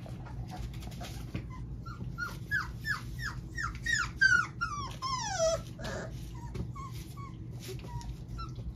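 Four-week-old puppies whimpering: a quick run of short cries, each falling in pitch, then one longer falling cry about halfway through.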